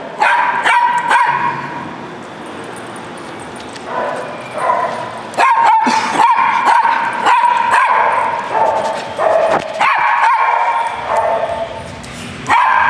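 Small dogs barking and yapping over and over, in bursts of several sharp barks with short lulls between.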